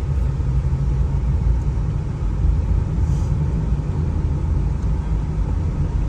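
Steady low rumble of a car driving, heard inside the cabin: engine and road noise of a Honda BR-V under way.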